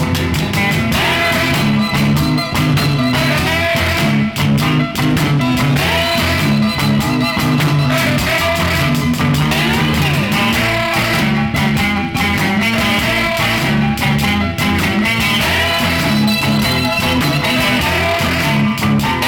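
Instrumental passage of a 1968 R&B/blues record, with guitar over a steady band backing and no singing; a couple of bent guitar notes come about halfway through.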